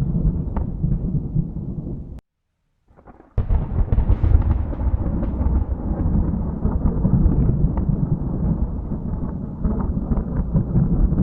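Thunder rumbling in a low, rolling wash. It cuts out to silence for about a second around two seconds in, then comes back loud and rumbles on.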